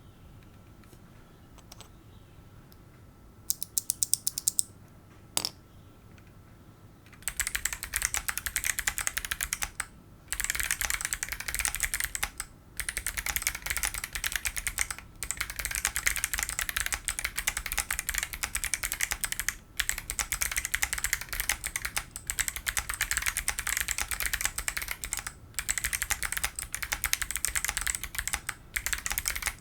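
Typing on a Class65 mechanical keyboard with Kailh Bullet clicky switches in an aluminium plate: sharp clicks in rapid succession. After a quiet start, a short flurry of keystrokes and a single click, steady fast typing begins about seven seconds in and runs on with brief pauses every few seconds.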